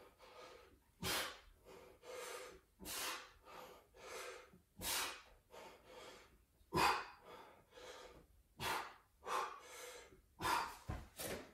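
A person breathing hard while exercising, with a strong exhale about every two seconds and softer breaths between.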